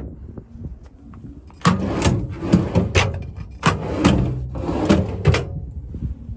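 Metal truck service-body compartment hardware being handled: a run of sharp clicks, knocks and rattles between about 1.5 and 5.5 seconds in, as of latches, doors and drawers being worked.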